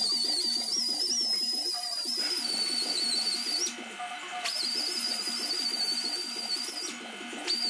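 Air-powered die grinder with a small abrasive disc, running at a high steady whine as it grinds down a weld on a steel bike frame tube. It is let off twice, about four seconds in and again near the end, the whine dropping out for under a second before spinning back up.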